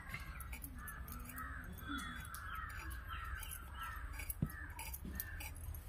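A crow cawing in a quick run of harsh calls, two or three a second, with one sharp knock about four and a half seconds in.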